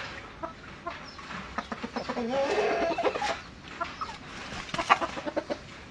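Chickens clucking with short calls, a longer call about two seconds in. Near the end comes a cluster of sharp flapping sounds from a rooster beating its wings.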